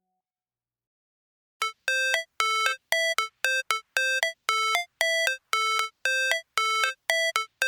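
Near silence, then from about a second and a half in a run of short electronic beeping notes, about two a second, each with a slight upward blip at its end, like a ringtone: the intro of a synthesized music track.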